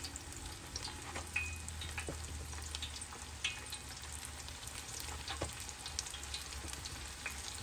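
Chicken drumettes deep-frying in oil at about 350 °F in a large steel wok: a steady sizzle with scattered crackles and pops as more pieces are lowered in with metal tongs.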